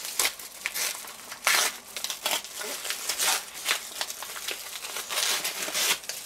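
Aluminium foil and paper wrapping being pulled open by hands in nitrile gloves, crinkling in irregular bursts.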